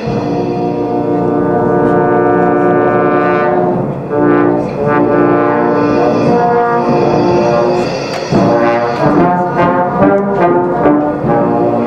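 Brass band with trombones playing held chords, with a short break between phrases about four seconds in and quicker note changes in the second half.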